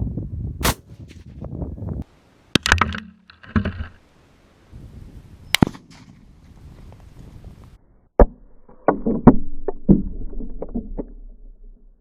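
Unsuppressed .308 bolt-action rifle (Remington 700 AAC-SD) firing single shots, sharp cracks spaced a few seconds apart with a short rumble trailing each, the loudest pair about eight and nine seconds in.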